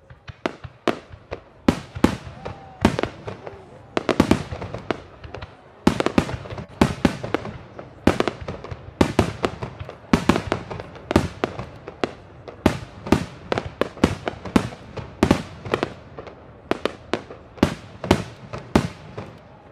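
Aerial fireworks going off in a rapid barrage: a steady run of sharp bangs, often several a second, as rising shells burst in gold starbursts.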